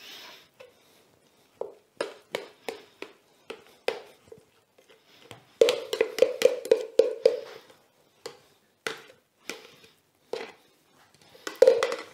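A small spoon tapping and scraping against a plastic blender jug, knocking out the last of the blended raw lamb into a bowl: a string of sharp taps, with a quick run of them about six seconds in and another cluster near the end.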